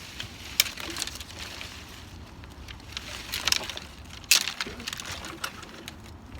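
Irregular crunching and snapping of sticks and dry leaves, with a cluster of crackles past the middle and one sharp snap about four seconds in, over a steady low rumble.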